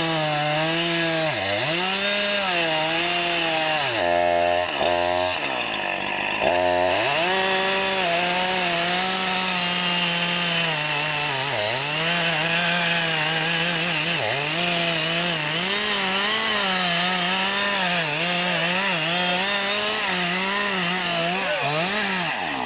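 Short-bar chainsaw running at high throttle while cutting through an oak trunk to fell it. The engine note keeps sagging under load as the chain bites and recovering, and it falls off sharply right at the end.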